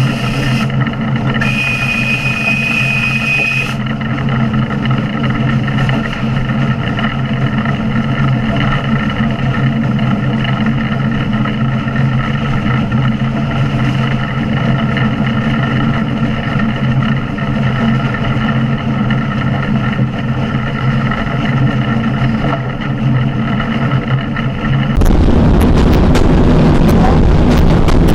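Tkt48 steam tank locomotive running under way, heard close beside its boiler as a steady, even hum of constant pitch. A high whistle sounds briefly right at the start and again for about two seconds soon after. About three seconds before the end this gives way abruptly to a louder, rougher rumble of the moving train heard from inside a carriage.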